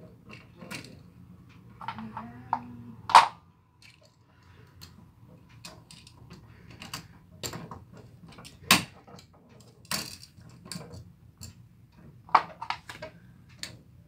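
Irregular sharp metal clicks and taps of wire strippers and copper wire against a duplex outlet's terminal screws and metal strap as the wire is bent into a hook and fitted. The loudest clicks come about three, nine and twelve seconds in, over a faint steady low hum.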